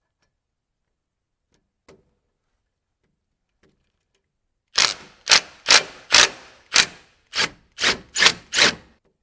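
A run of nine sharp, loud knocks, about two a second, starting about halfway through, after near silence with one faint click.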